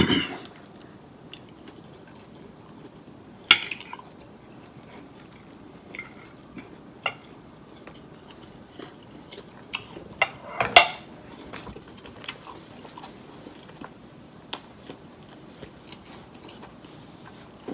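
Eating sounds close to the microphone: chewing, with sharp clinks of a metal fork against a plate scattered throughout, the loudest near the start, about three and a half seconds in, and a cluster about eleven seconds in.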